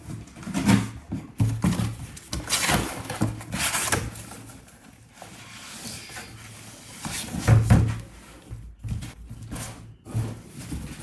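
Cardboard shipping carton being opened by hand: its flaps rustling and scraping, and the shoe box inside being handled and slid out, with several knocks and thuds on the wooden table.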